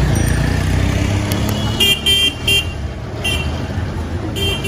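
Street traffic with a steady engine rumble and a series of short, high-pitched vehicle horn beeps: three quick toots about two seconds in, another a second later, and one more near the end.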